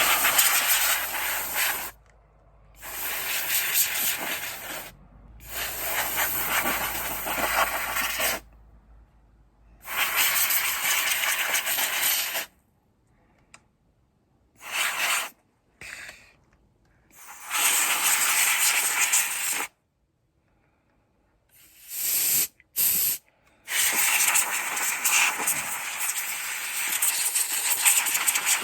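Can of compressed air spraying in a series of hissing bursts to blow dust out of an accordion. Most bursts last a second or two, a few are brief puffs, and a long spray runs through the last few seconds.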